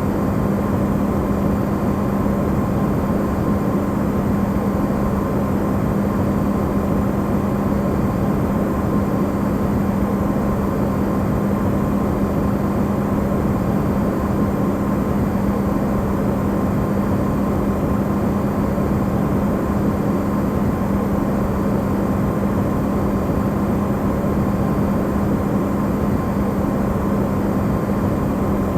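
Amplified running sound of an Electrolux refrigerator: a steady, even hum and whir with a strong low tone and a fainter higher one, unchanging throughout.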